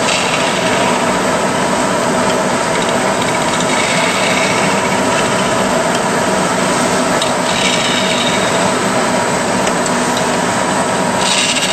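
Vertical double disc grinder running steadily, its diamond-impregnated wheels grinding ceramic discs with an even, rasping noise and faint steady tones. A few brief, brighter scraping sounds rise over it about four, seven and eleven seconds in.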